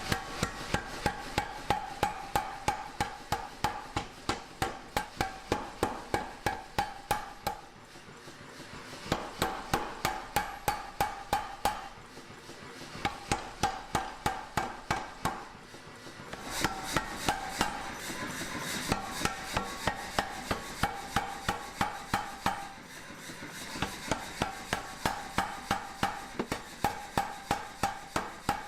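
Hand hammer blows on hot mild steel at the anvil, in steady runs of about three strikes a second broken by short pauses, with the anvil ringing through each run.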